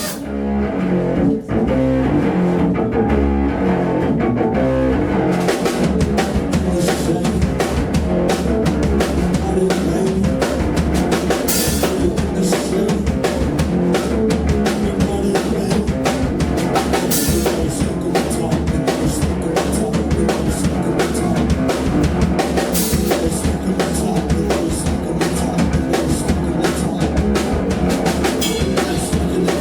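Live rock band playing loud: bass and low instruments alone for the first few seconds, then the full drum kit with cymbals comes in about five seconds in and the song drives on at a fast, steady beat.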